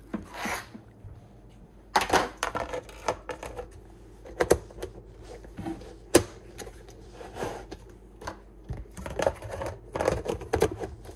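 Red plastic food-storage lids pressed and snapped onto plastic containers: a string of irregular plastic clicks and knocks, the sharpest about two, four and a half and six seconds in, with a cluster near the end.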